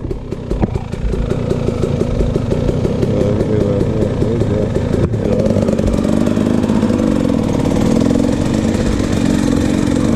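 KTM 300 two-stroke dirt bike engine under way on a trail, its pitch rising and falling with the throttle. The sound breaks off briefly about five seconds in.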